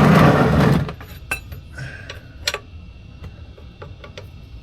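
A loud scraping, rustling rush in the first second as something is moved aside, then scattered light metallic clicks and clinks of tools and parts being handled, over a low steady hum.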